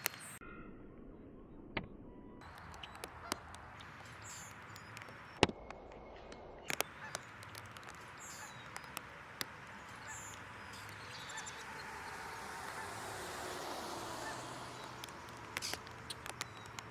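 Wild birds calling outdoors over a steady background hiss, with many short, sharp clicks scattered throughout. A broad hiss swells and fades around the middle.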